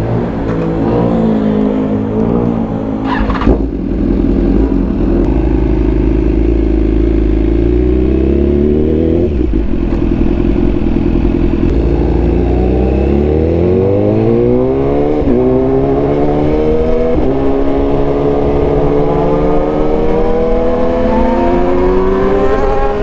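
BMW S1000R's inline-four engine accelerating hard through the gears. The pitch climbs steadily and drops quickly at each upshift, at about nine, fifteen and seventeen seconds, with a sharp click about three seconds in.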